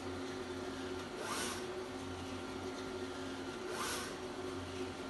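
Mimaki UJF-3042HG UV flatbed printer running with a steady hum, and twice a short rising whir of its mechanism, about two and a half seconds apart.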